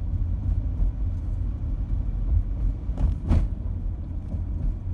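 Steady low rumble of a car driving, heard from inside the cabin: engine and tyre noise, with one brief sharp knock about three seconds in.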